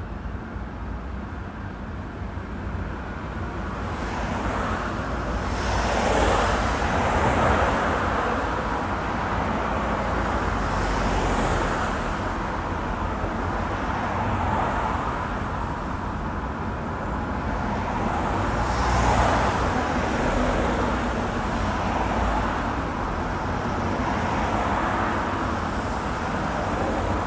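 Road traffic: cars passing one after another, their tyre and engine noise swelling and fading over a steady hum. The loudest pass-bys come about six and nineteen seconds in.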